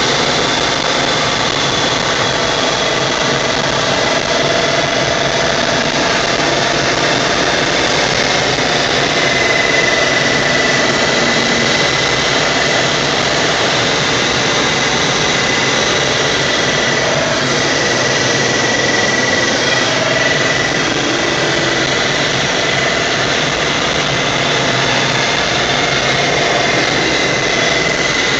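Steady rush of air streaming over the canopy of a G103 Twin Astir II glider in flight, with a thin high whistle over it that grows stronger about a third of the way through.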